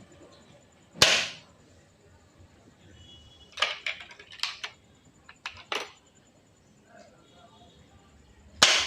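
Two shots from an Indian-made Diana 35 .22 spring-piston air rifle, one about a second in and one near the end. Between them comes a run of sharp clicks and clacks, consistent with the rifle being cocked and reloaded.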